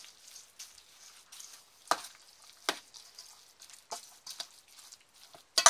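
A spoon mixing a thick batch of cooked vegetables, lentils, pearl barley and porridge oats, with a few separate scrapes and knocks of the spoon against the container. The loudest comes just before the end.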